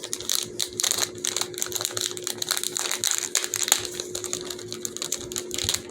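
Fast, irregular clicking and clattering of small plastic fidget toy pieces being handled and worked by hand.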